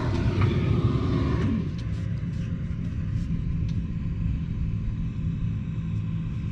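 Tractor engine running steadily, a low even hum, louder and fuller for the first second and a half and then settling lower.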